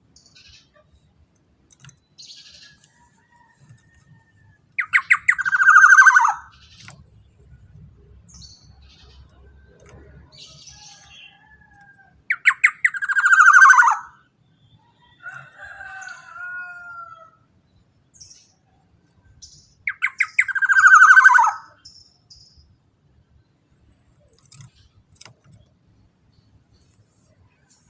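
Black-naped oriole (kepodang) giving three loud harsh calls about seven or eight seconds apart. Each call is a quick stutter followed by a harsh falling note. Softer whistled, slurred notes come between the second and third calls.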